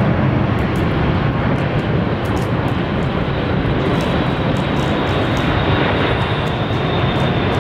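British Airways Boeing 747-400 on final approach, its four Rolls-Royce RB211 turbofans giving a steady, loud jet engine noise with a faint high whine that sinks slowly in pitch.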